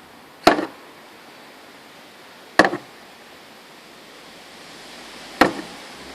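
Three sharp knocks a couple of seconds apart, each with a short rattle after it: a Greek tortoise butting its shell against a lawnmower that is not running.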